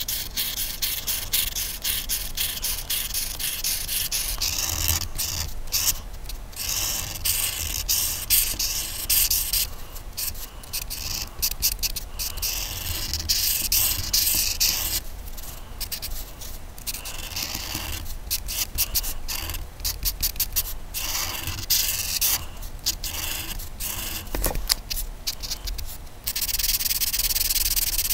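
Coloring on paper: a coloring tool scratching across the page in quick back-and-forth strokes with short pauses between runs. Near the end it changes to a steadier, louder rubbing.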